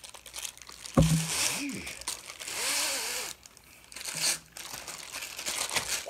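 Plastic wrapping crinkling and tearing as it is pulled off a new belt, with a thump about a second in.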